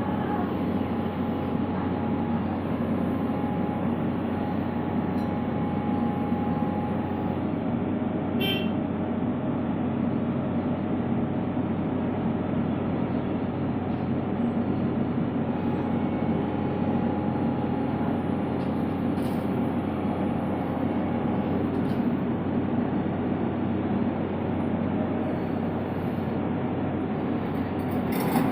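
Diesel engine of a Tata Hitachi excavator running steadily under work, a constant low drone.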